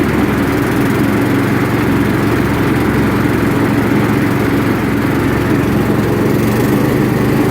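Toro LX420 lawn tractor engine running steadily at a constant speed.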